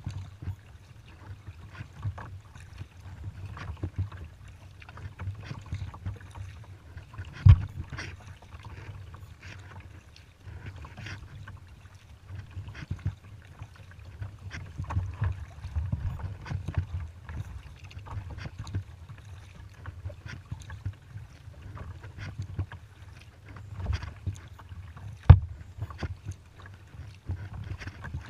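Kayak being paddled: irregular splashes and drips of the paddle strokes over a steady low rumble, with two sharp knocks, one about a quarter of the way in and one near the end.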